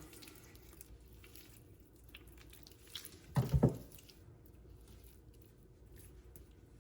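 Raw chicken thighs being rubbed and handled by hand with salt, giving soft wet squishes and small clicks. One brief, louder low thump comes about three and a half seconds in.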